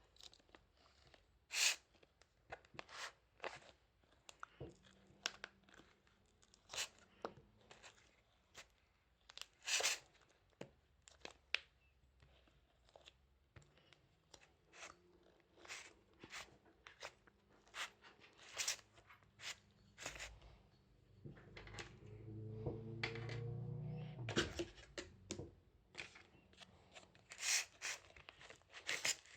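Slime being squeezed and poked by hand, giving scattered sharp pops and crackling clicks. A low drone with a rising whine sounds for a few seconds about three-quarters of the way through.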